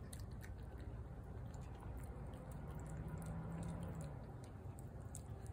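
A cat chewing and lapping wet food from a plate: faint, scattered small clicks and smacks over a steady low background rumble, with a brief low hum near the middle.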